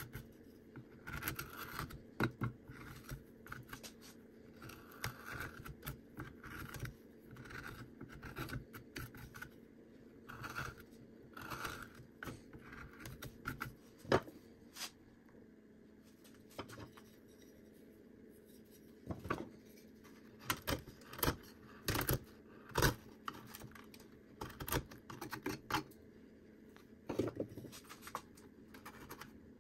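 Hand carving tools, a knife and a gouge, cutting and scraping into cottonwood bark: irregular short scratchy strokes, with a few sharper clicks and knocks, most of them a little past the middle.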